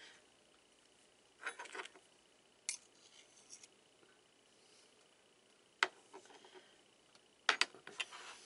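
A metal spoon scooping sour cream out of a plastic tub: a few soft scrapes and several sharp taps of the spoon against the tub and plate, with quiet gaps between.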